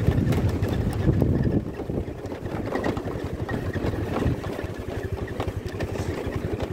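Motor scooter engine running at low speed with an even pulsing rumble, louder for the first second and a half and then easing off.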